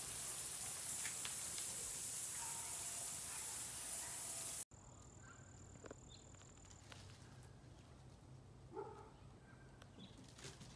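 Quiet outdoor background with a steady high hiss that cuts off abruptly about halfway through. After that the background is fainter, with a thin steady tone for a couple of seconds and a few brief faint chirps.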